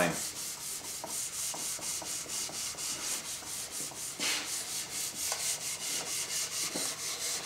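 Jet jointer knife clamped in a sharpening jig being rubbed back and forth on wet 3M micron-graded abrasive film on granite: a steady, rhythmic scraping, with one louder stroke about four seconds in.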